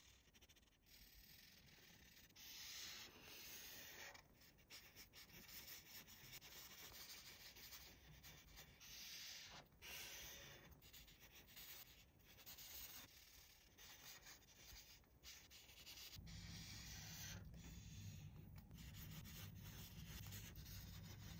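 Near silence with faint, irregular rubbing and rustling of hands handling a toy. A low hum comes in about three-quarters of the way through.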